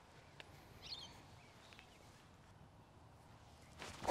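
Quiet outdoor air with a short bird chirp about a second in, then at the very end a golf driver strikes a ball off the tee with a single sharp, loud crack.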